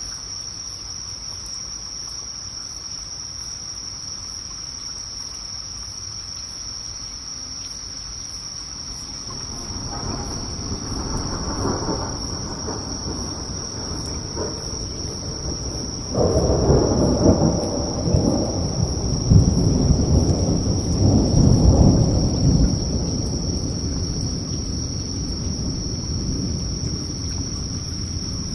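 A roll of thunder that builds about a third of the way in, is loudest past the middle, then slowly fades. It sounds over a steady high chirring of night insects.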